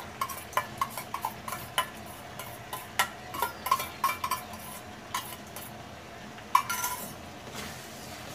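A spatula clinking and scraping against a frying pan as prawns and chillies are stirred in oil. The clinks are irregular and busiest in the first five seconds, with a last flurry about six and a half seconds in.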